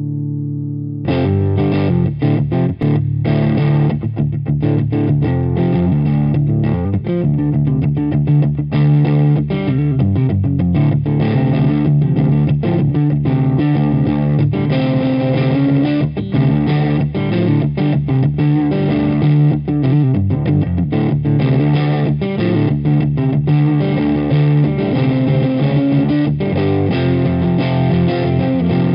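Electric guitar played with a distorted tone through a Kustom Defender V15 amplifier: a run of fast picked riffs and chords that comes in about a second in.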